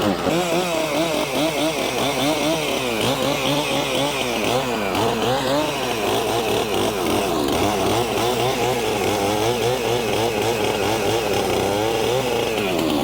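Two-stroke chainsaw cutting through branches, its engine pitch rising and falling continuously as the chain bogs and frees in the wood.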